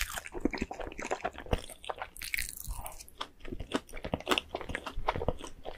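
Close-miked mouth sounds of someone eating a cream-topped doughnut: quick wet chewing smacks and clicks with soft crunches, and one louder crunchy noise about two seconds in.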